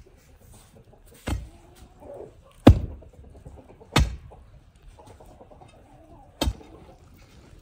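A long iron bar driven down into the ground by hand, four heavy thuds at uneven intervals, the second one the loudest.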